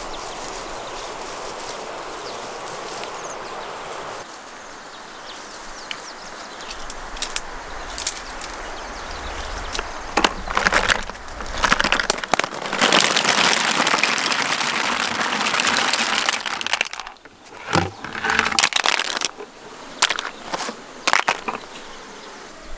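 Footsteps brushing through tall grass and leaves. About halfway through, a bucket of large freshwater snails is tipped out into a woven basket, and the shells clatter together in a long rush of clicks and knocks, with a few scattered knocks after it.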